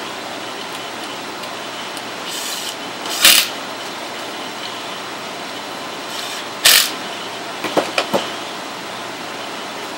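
Steady fan-like hiss with a few handling noises over it: two short rustling or scraping bursts, then a quick cluster of clicks and knocks, typical of hands working on the unit's parts.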